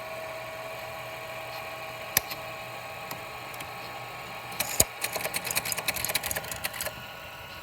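Teletype machine running with its steady motor hum, a single click about two seconds in, then a rapid clatter of its printing mechanism at about ten strokes a second for roughly two seconds.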